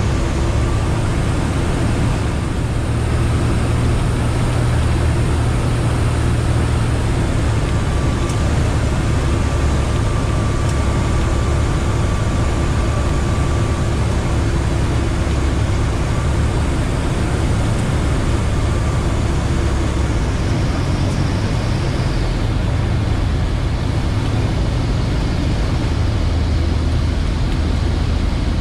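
Comco Ikarus C42 ultralight's engine and propeller running steadily, heard inside the cockpit along with airflow noise, during the final approach and the rollout on the runway after landing.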